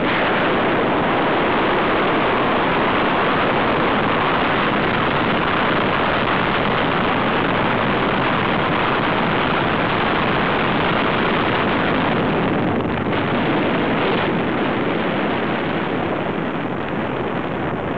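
Steady rush of wind across the camera microphone from the airflow of a tandem paraglider in flight.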